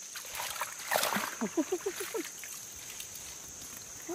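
Splashing and sloshing in shallow muddy pond water. About a second in comes a run of short, quick calls, each bending up and down.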